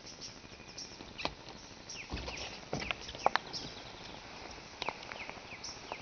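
Forest birds calling: many short, high chirps and twitters throughout. Between about one and three and a half seconds in come a few sharp clicks and a low thud, the loudest a single click about three seconds in.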